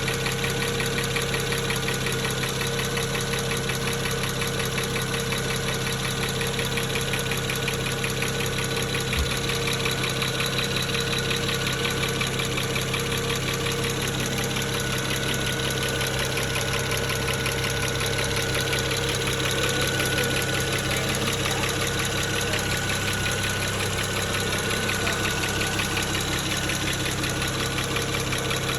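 2009 BMW 335xi's N54 twin-turbo straight-six idling slightly rough, with a steady rapid ticking over the engine note that differs from the usual N54 injector tick; the owner suspects a bad fuel injector.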